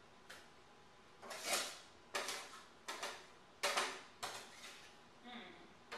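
A utensil clacking and scraping against a baking sheet and a blender jar as roasted peppers and tomatoes are moved into the blender. The clacks come about one a second, with a longer scrape about a second and a half in.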